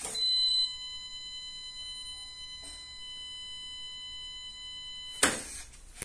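SwitchBot smart lock's motor turning the door's thumbturn to unlock: a steady high whine, loudest in the first half second, ending in a sharp clunk just over five seconds in as the turn stops.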